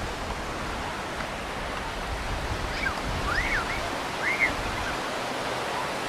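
Surf washing onto the beach, a steady hiss of breaking waves. A few short, faint rising-and-falling calls sound in the middle.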